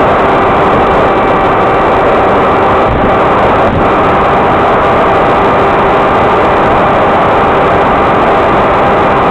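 Loud, steady rushing noise with faint steady tones running through it: the garbled audio track of an FPV video recorder on a flying RC plane, which the uploader says came out wrong and is very annoying.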